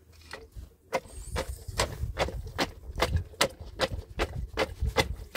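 Steady rhythmic knocking, about two to three sharp strikes a second, starting about a second in, over a low rumble.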